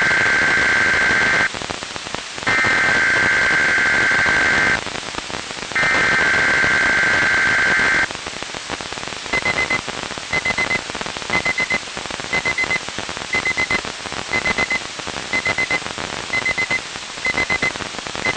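A weather radio alert test heard over radio static. First come three bursts of SAME digital header tones, each a warbling data burst about two seconds long. About nine seconds in, short electronic alert beeps start, about once a second.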